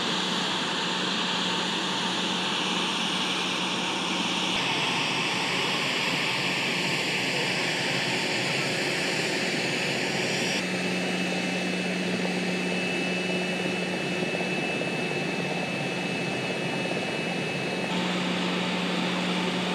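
MQ-4C Triton's turbofan engine running as the drone taxis: a steady jet rush with a low hum, and a thin high whine through the middle part. The sound shifts abruptly a few times.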